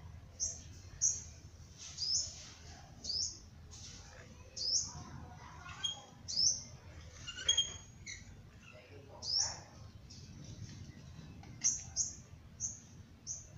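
Small bird chirping over and over: short high chirps, each dropping in pitch, one every half second to a second. Beneath them, a trowel scrapes faintly on wet cement.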